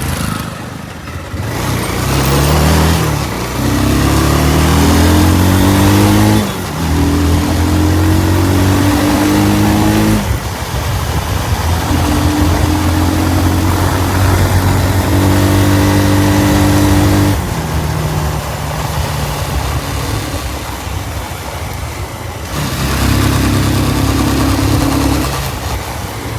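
An engine revved up and held at a steady speed several times, dropping back between revs.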